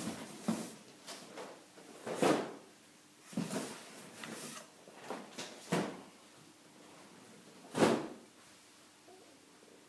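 Large cardboard box being handled: its flaps scrape and thump in a string of separate short bursts, the loudest near the end, after which it goes quiet.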